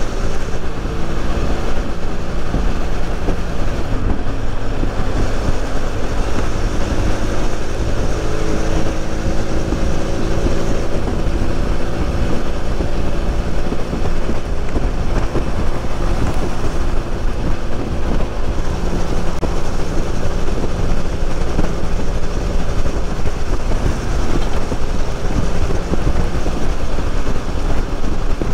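BMW F800's parallel-twin engine running at a steady highway cruise, under a heavy rush of wind noise.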